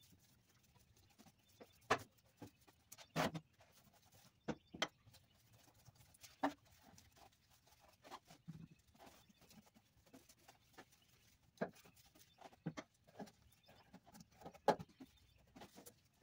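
A 2-inch chip brush working thick paint onto a steel floor pan: scattered light scrapes and knocks at irregular times, with quiet in between.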